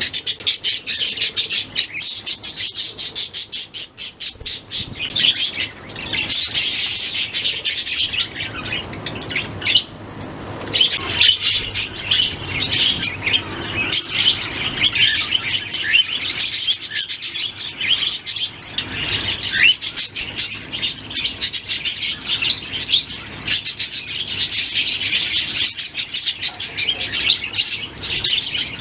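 A flock of budgerigars chirping and chattering continuously, with rapid overlapping calls and occasional squawks.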